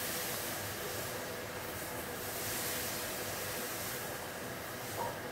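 Steady background hiss with a faint hum under it, and a small tick about five seconds in.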